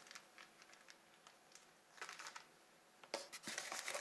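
Faint rustling and light clicks of packaging being handled, with a short rustle about two seconds in and a louder stretch of rustling near the end.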